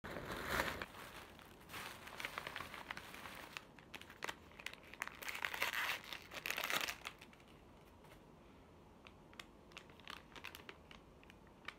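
Paper bag being handled and opened, crinkling and rustling with a little tearing for about seven seconds, then only occasional small rustles and ticks.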